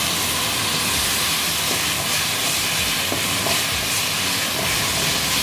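Chopped bell peppers, red onion and green chillies sizzling with a steady hiss in hot oil in a steel pan over a high flame, a spoonful of vinegar just added, while a silicone spatula stirs them.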